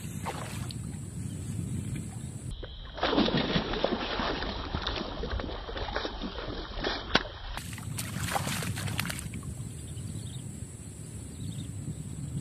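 Hooked snakehead thrashing at the surface of shallow swamp water: a run of loud splashing from about three seconds in, with a sharp splash near seven seconds and more splashing around eight seconds. A steady low rumble of wind on the microphone underneath.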